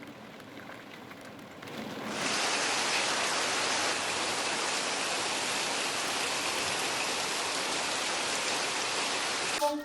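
Heavy rain pouring down steadily, a dense even hiss that comes in strongly about two seconds in after a fainter start and cuts off abruptly just before the end.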